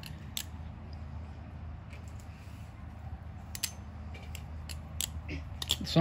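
Benchmade 85 balisong being flipped: light metallic clicks as its titanium handles and latch knock together, a few scattered ones with two close together about halfway, then a quicker run of clicks near the end.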